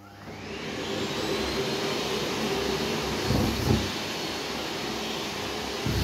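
Miele CX1 canister vacuum cleaner's motor spinning up with a rising whine over about a second, then running steadily. About three seconds in, a few short low knocks as socks are pulled into the floor head.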